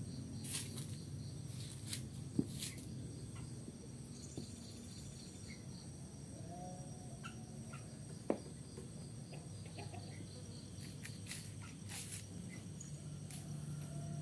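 Insects chirping in thin, steady high tones with a fast pulsing beat, over a faint low rumble of outdoor ambience, with a few soft clicks scattered through.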